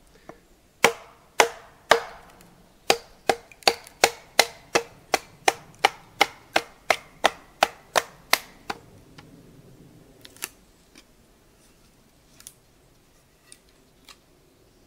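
Batoning: a wooden baton hammering a blade down through a spruce billet to split it, about twenty sharp wooden knocks in a steady rhythm of nearly three a second. After a pause a few lighter knocks follow.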